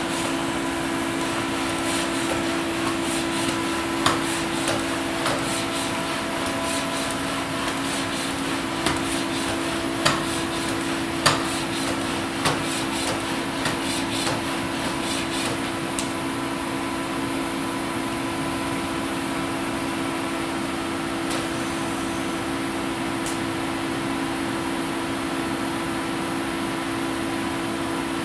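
Footfalls of a torque-controlled humanoid robot walking on a hard floor: irregular sharp knocks and clicks, mostly in the first half, as its feet set down. A steady hum with two low tones runs underneath.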